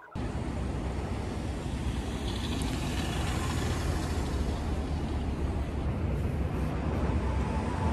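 Street traffic noise: a steady rumble of passing cars and other vehicles.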